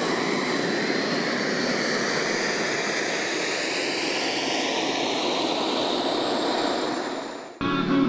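A radio-controlled model aircraft's engine runs steadily overhead, with a high whine that slowly shifts in pitch as it flies past. Near the end it cuts off suddenly and music begins.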